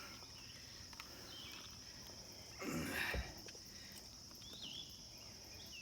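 Steady, high-pitched chorus of insects such as crickets, with a short noise of handling or movement about three seconds in.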